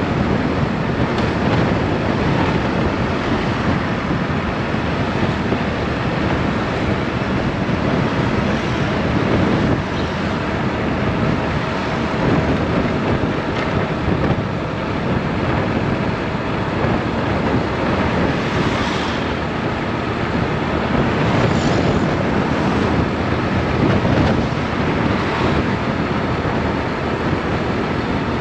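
Wind rushing over the microphone of a moving motorbike, with the engine and road noise underneath, steady throughout.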